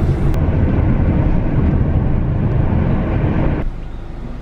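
Car driving: steady road and engine noise with a low rumble, dropping suddenly to a quieter hum about three and a half seconds in.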